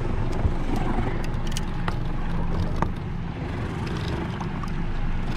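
Boat motor running with a steady low hum, over wind and water noise, with scattered light clicks and knocks.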